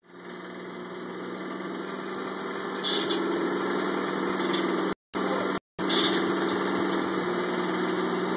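Mitsubishi Eclipse engine idling steadily. The sound cuts out twice for a moment about five seconds in.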